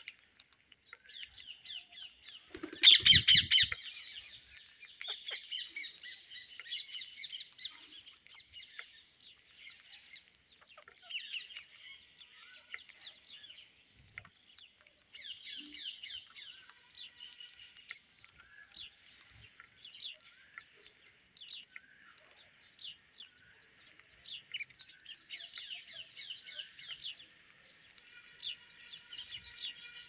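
Birds chirping: a steady chatter of many short, quick chirps, with a louder burst of calls about three seconds in.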